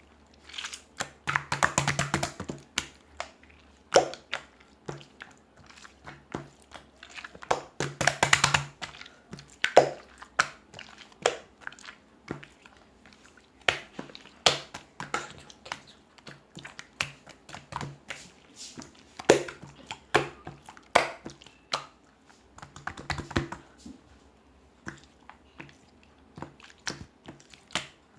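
Slime being squeezed and kneaded by hand, making irregular sticky clicks and pops, with denser flurries now and then.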